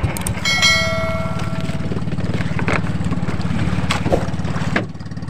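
Small engine of an outrigger fishing boat running steadily with a low, pulsing drone. About half a second in, a short bell-like ding rings over it and fades within about a second and a half.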